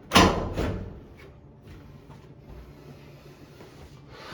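A loud clunk just after the start, then a second lighter knock about half a second later, followed by a few faint clicks and taps.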